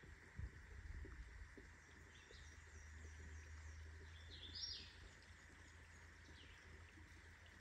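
Faint birdsong: scattered short chirps, with one louder call about halfway through, over a low rumble and a soft thump near the start.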